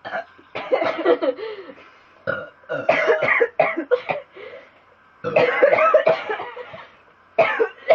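A young woman belching, a run of about five loud burps in a row, the longest lasting more than a second, about five seconds in.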